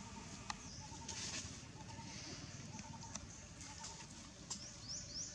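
Outdoor forest ambience: a low steady rumble of wind on the microphone, a few sharp clicks like dry leaves crackling, and bird chirps, with short rising high chirps near the end.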